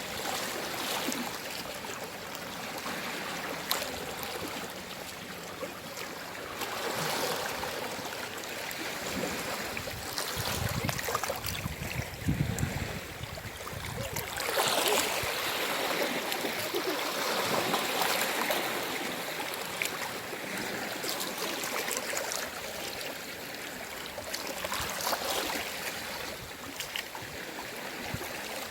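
Sea waves washing ashore, the surf noise rising and falling in swells every few seconds.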